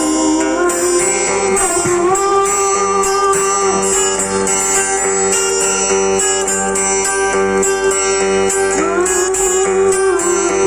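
Guitar strummed in a steady rhythm, with a long held melody note gliding up and down over it.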